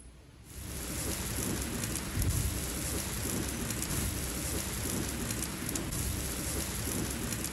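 Slices of buttered Mallorca bread sizzling on a hot griddle plate. The sizzle starts suddenly about half a second in as the bread goes down, then runs steadily.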